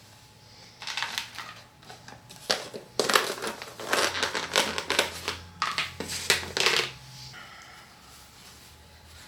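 Plastic bag crinkling and rustling in irregular bursts as cooked bacon is handled and packed for storage, dying down near the end.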